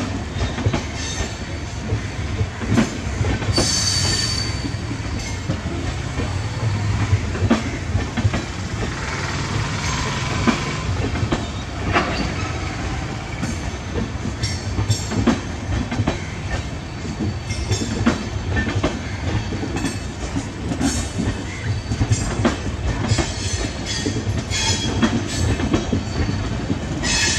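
A rake of LHB passenger coaches rolling past, their wheels rumbling and clattering steadily over rail joints, with a brief high wheel squeal about four seconds in.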